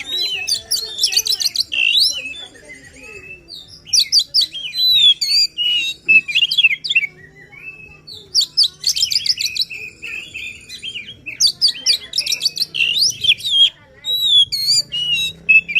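Oriental magpie-robin (kacer) singing its full, agitated song: rapid runs of varied whistles, trills and chattering notes in several phrases broken by short pauses.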